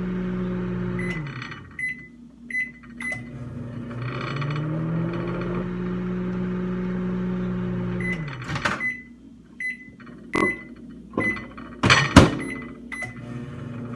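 Microwave oven running with a steady hum that winds down about a second in, followed by several short keypad beeps. It starts again and hums for about four seconds before winding down, then more beeps and a few sharp clicks and knocks, the loudest near the end.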